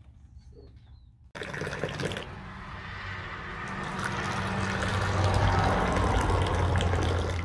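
Tea poured in a high, thin stream into small glasses, splashing and frothing as it lands. The splashing starts suddenly about a second in and grows louder as the glasses fill.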